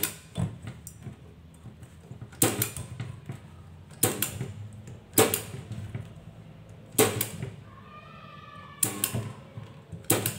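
Battery spot welder firing through a handheld pen, welding nickel strip onto lithium-ion cells: about seven sharp snaps, one weld every one to two seconds.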